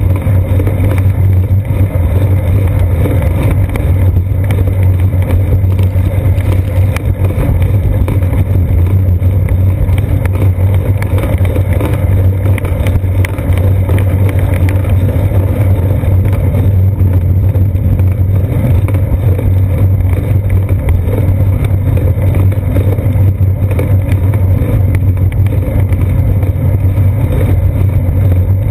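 Steady loud low rumble of wind and road vibration from riding a bicycle along a paved path, picked up through a seat-post-mounted action camera. It holds even throughout, with no distinct events.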